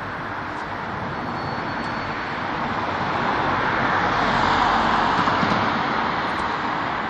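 Street traffic noise, with one passing vehicle swelling to a peak about four to five seconds in and then fading away.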